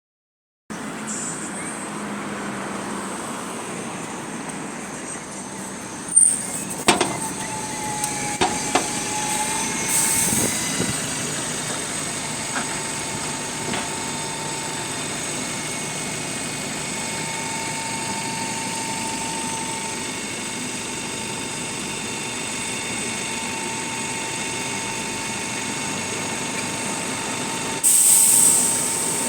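Bus with a Voith automatic gearbox and Cummins 4.5-litre four-cylinder ISBe engine pulling in first gear at low speed, with a faint whining 'wooing' tone running over the drive noise. The tone cuts in and out, which the owner ties to the gearbox engaging first gear and dropping back to neutral. A few knocks come in the first third, and a short air hiss comes near the end.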